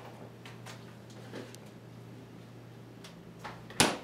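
A few light clicks and taps at an open refrigerator, then a single sharp thump near the end as the refrigerator door is shut.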